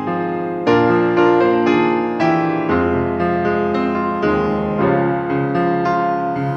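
Grand piano playing a hymn instrumentally in full chords, a new chord struck about twice a second.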